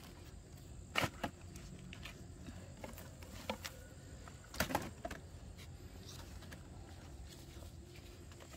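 A few scattered knocks and clicks, the loudest about a second in and a pair near the five-second mark, over a faint steady background.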